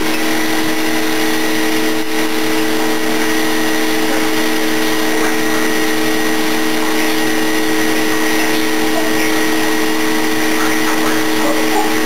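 Vacuum cleaner running steadily, its motor holding a constant hum and whine.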